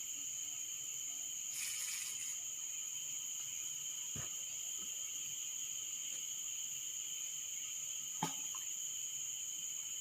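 Steady insect chorus of crickets chirring, two high pitches held without a break, with a faint click about four seconds in and another about eight seconds in.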